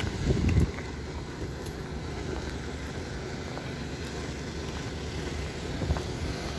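Wind buffeting the microphone: a low, steady rumble, with a stronger gust in the first second.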